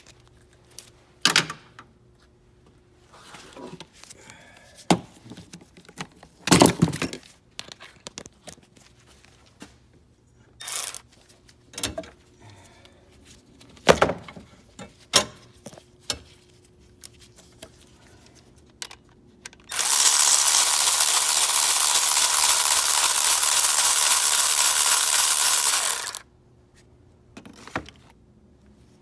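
Metal tools clinking and knocking under the hood, then a cordless power tool runs steadily for about six seconds, starting about two-thirds of the way in, working the bolt of the engine's belt idler pulley.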